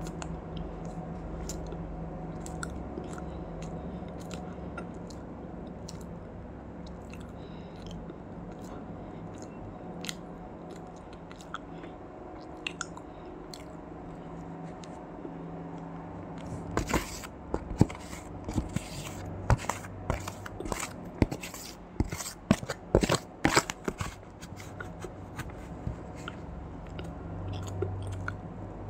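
Close-up crunching and chewing of powdery frozen ice coated in matcha powder, bitten off a spoon. Scattered small crackles at first, then a dense run of loud crunches from about halfway through that lasts several seconds, over a steady low hum.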